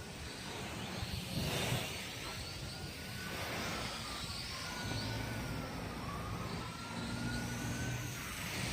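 MJX X600 hexacopter's motors whining, the pitch rising and falling as the throttle works against strong gusty wind, with wind rushing over the microphone.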